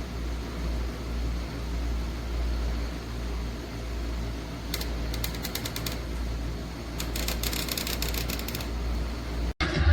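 Electric fan running with a steady low hum and rushing air, broken twice by stretches of rapid clicking, about five and seven seconds in.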